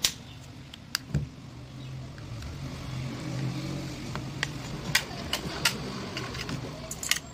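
Scattered sharp clicks and snaps of a screwdriver and knife prying at the glued plastic lid of a sealed 12 V lead-acid battery, more frequent in the second half, over a steady low hum.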